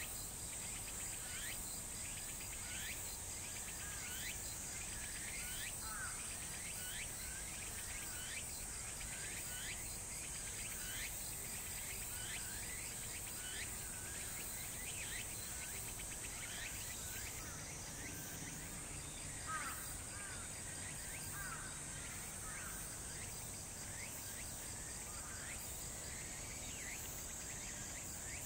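Insects calling: a steady high-pitched drone and a fast, regular cricket-like pulsing, over many short falling chirps that repeat irregularly throughout.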